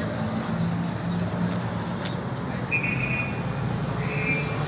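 Motorcycle engines idling and running steadily. Two short high tones come through about halfway in and again near the end.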